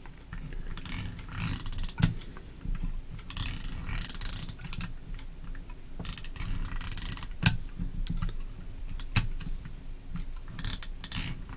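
Scotch Extra Strength adhesive tape runner drawn along index card stock in about four separate strokes, its gears ratcheting as the tape is laid and the backing rewinds. Sharp single clicks fall between the strokes.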